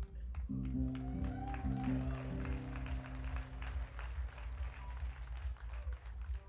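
Audience applauding, with a few long, low held notes from the band's instruments that change pitch once or twice and fade out over the first three seconds.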